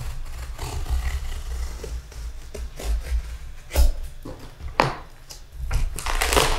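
A blade cutting through packing tape along the seam of a large cardboard box, with scraping and sharp knocks from the blade and cardboard. A longer scrape comes near the end as the cut is drawn along the middle.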